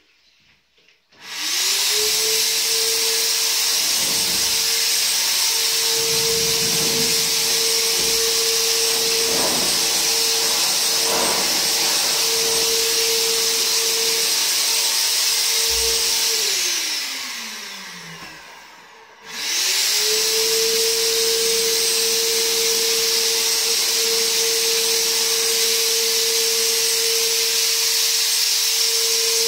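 Hand-held electric cold fogger's blower motor spinning up about a second in and running with a steady high whine while it sprays insecticide mist. Past the middle it is switched off and winds down with a falling pitch, then about a second later it starts again and spins back up to the same steady whine.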